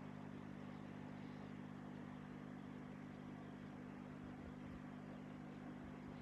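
Faint steady low hum of running aquarium equipment, a motor drone with a soft hiss over it, unchanging throughout.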